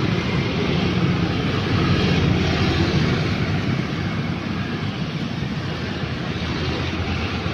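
Passing road traffic: motorbikes, cars and trucks going by with a steady mix of engine and tyre noise. It is loudest over the first few seconds and eases a little after about four seconds.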